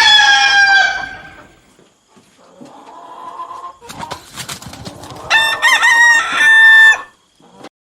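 Rooster crowing twice: the end of one crow in the first second and a half, then a second loud, wavering crow from about five seconds in, with quieter calls and some rustling between them.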